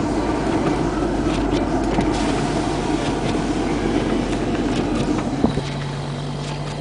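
Audi quattro pushing through deep snow: the engine works under load over a rumble of snow against the front and underbody, with scattered light ticks. About five and a half seconds in there is a knock, then the sound eases a little and a steady low engine hum takes over.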